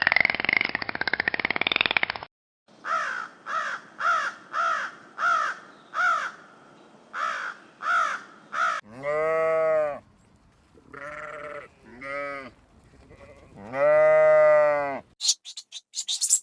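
Sheep bleating: one long call, two shorter ones, then a loud long call. Before them comes a quick run of about ten short, harsh calls, and at the very start a rough, buzzing sound.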